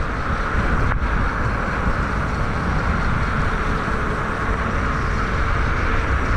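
Mountain bike rolling down a dirt trail at speed: steady wind rumble on the rider's camera microphone with a constant hiss of tyre and bike noise.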